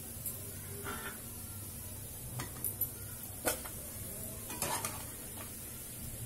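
Perforated steel skimmer scraping and clinking against the frying pan and plate as fried gulgulas (sweet wheat fritters) are lifted out of the oil, with several sharp clinks, the loudest about three and a half seconds in. Under it the oil sizzles faintly and steadily.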